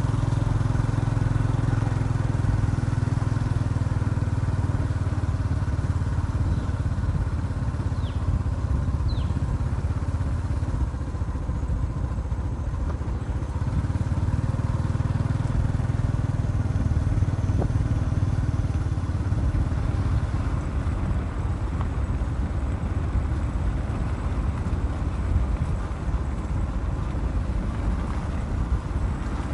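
Steady low rumble of a vehicle engine running, as heard while travelling.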